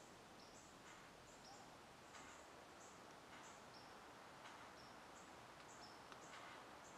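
Near silence: faint outdoor ambience with short, high-pitched chirps repeating irregularly.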